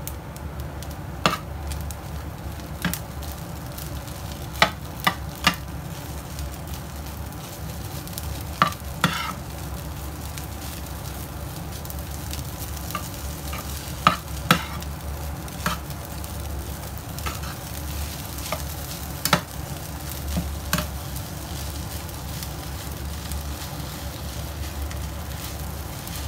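Rice frying in a nonstick pan and being stirred and pressed with a metal spatula, with sharp scrapes and clicks of the spatula against the pan at irregular moments over a steady low hum.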